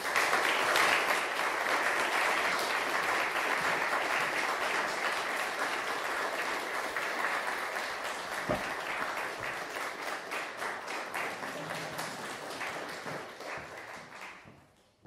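Audience applauding, starting abruptly and gradually tapering off toward the end, with one dull thump about halfway through.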